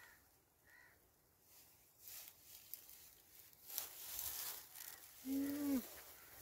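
Faint rustling of footsteps in dry grass. About five seconds in there is one short call of about half a second that rises and then falls in pitch.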